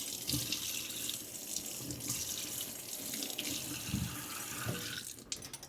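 Kitchen sink faucet running as small new potatoes are rinsed under the stream; the water shuts off near the end.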